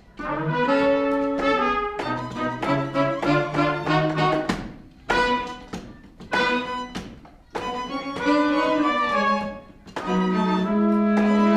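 A musical-theatre pit orchestra playing an instrumental passage in short phrases, with brief breaks between them about five, seven and a half and ten seconds in.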